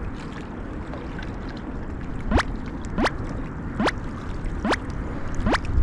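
Water lapping against a rocky shore under a steady hiss of wind. From about two seconds in, five short rising whistles sound at a regular pace, about one every 0.8 s.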